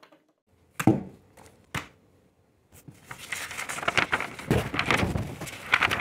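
Two sharp taps on a desk, then paper sheets rustling and crackling as they are handled and flipped over, the loudest part near the end.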